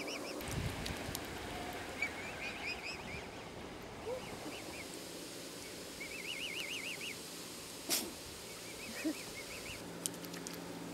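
High, wavering bird calls in short runs of quick chirps, repeated several times, with a sharp click about eight seconds in.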